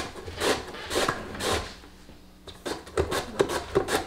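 Korean radish (mu) being shredded on a wooden slicer: rasping strokes about two a second, a short pause about two seconds in, then quicker strokes.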